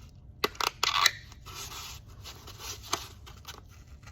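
Sandpaper being handled while the sanding paper on a sander is swapped: a cluster of sharp crackling, scraping noises about half a second to a second in, then lighter rustling and scattered clicks.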